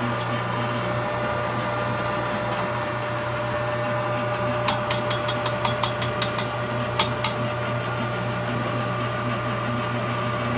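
Well pump's electric motor running with a steady hum while it builds pressure after priming, the house water shut off. About halfway through comes a quick run of a dozen or so sharp clicks over a little under three seconds.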